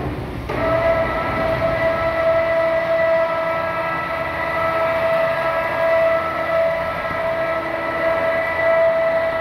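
Electric overhead crane running as it carries a slung stone block: a steady whine at one unchanging pitch with several overtones, starting about half a second in.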